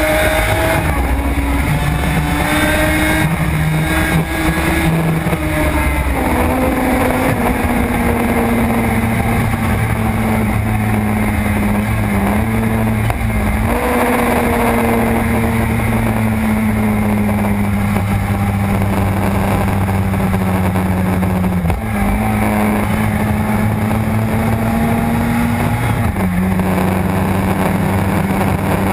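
Suzuki RG500 square-four two-stroke racing engine running hard at high revs, heard onboard over wind rush. Its note breaks briefly several times as the rider changes gear.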